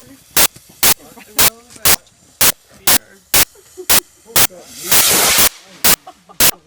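Multi-shot firework cake firing a steady barrage of sharp bangs, about two a second, with a longer hissing burst about five seconds in.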